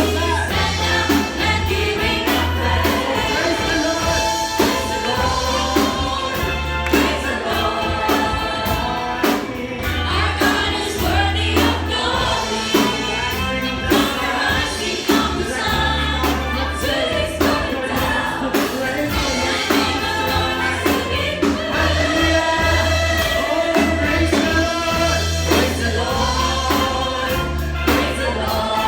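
Live gospel worship music: a group of voices singing together over a band with bass and drums.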